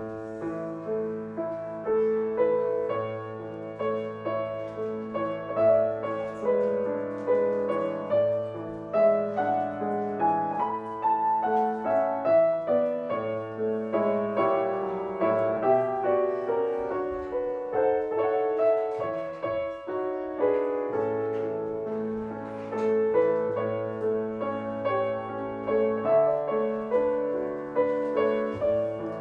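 Instrumental piano music, a barcarolle: a flowing melody of struck notes over sustained low bass notes.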